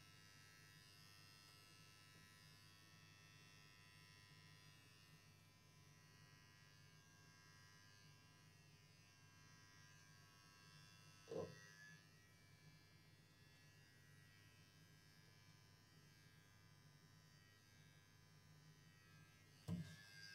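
Electric pet hair clippers running with a steady faint buzz during a cat's haircut. Two brief thumps cut through it, one about eleven seconds in and one near the end.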